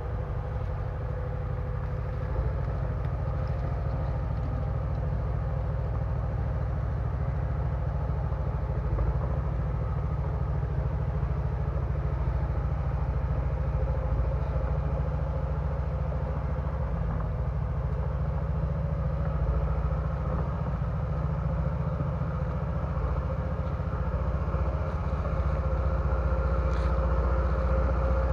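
Bulldozer's diesel engine running steadily, a deep continuous drone that grows a little louder near the end.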